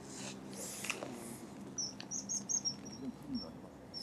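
A small bird chirping: a run of short, high, thin notes starting about two seconds in. Before that, rustling from hands working paste bait in a bowl.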